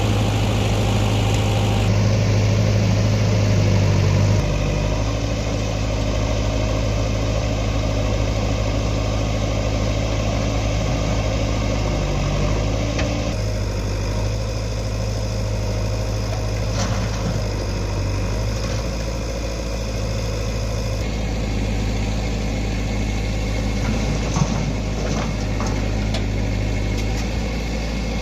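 Diesel engine of a JCB 3DX backhoe loader running steadily with a strong low hum, its sound shifting abruptly several times. A few short knocks and clanks come in the later part.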